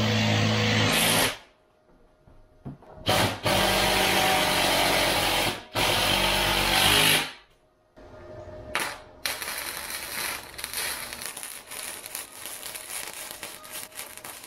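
A power tool runs in loud bursts of a second or two, stopping and starting. About eight seconds in, a wire-feed welding gun takes over with a steady crackling sizzle as it welds steel strut channel.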